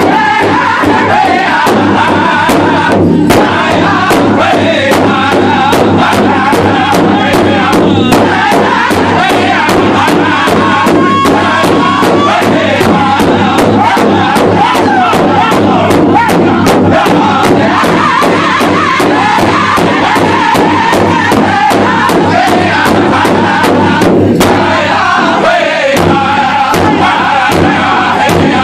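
Powwow drum group singing an intertribal song: a chorus of voices in unison over one large hide-headed drum struck together with sticks in a steady, even beat.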